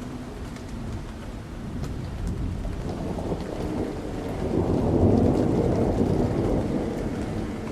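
Rolling thunder over steady rain: a deep rumble builds about three seconds in, peaks near the middle and slowly fades, with raindrop patter throughout and a faint low steady hum beneath.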